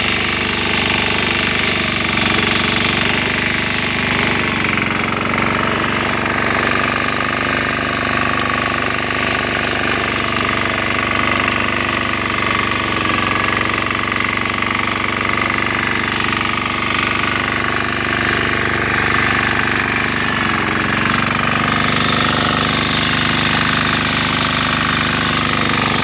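Grass-cutting machine's engine running steadily at an even speed.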